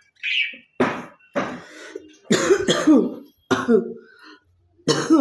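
A woman coughing repeatedly, about six harsh coughs in a row, some drawn out into a voiced, hacking throat-clearing, from a cough that is bringing up phlegm.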